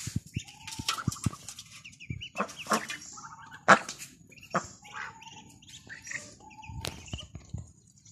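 A group of domestic ducks with ducklings calling: a steady run of short quacks and higher peeping notes, with one loud call about three and a half seconds in.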